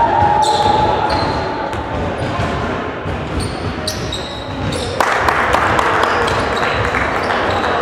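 Basketball game sounds in a gym: a ball bouncing on the hardwood floor and sneakers squeaking, then a sharp knock about five seconds in, with louder crowd and bench noise after it as play runs up the court.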